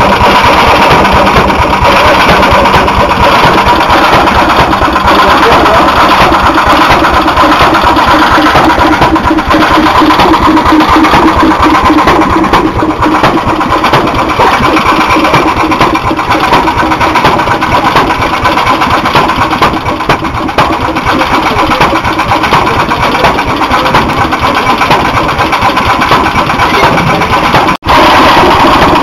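Vintage stationary hit-and-miss gas engines running, a loud, steady mechanical chugging that goes on without a break until a brief dropout near the end.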